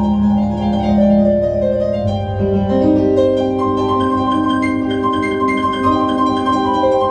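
Piano improvisation: many notes ringing together over a held low bass note, which changes about two seconds in.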